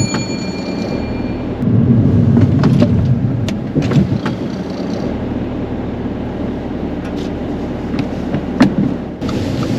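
Car cabin noise on the move: a steady low engine and road rumble, with occasional light clicks and knocks.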